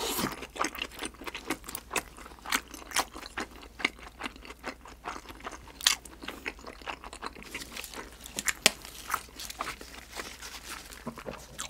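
A person chewing sauce-glazed grilled freshwater eel, an irregular run of small mouth clicks and smacks.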